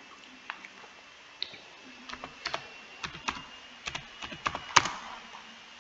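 Computer keyboard typing: slow, uneven keystrokes, one clearly louder than the rest near the end.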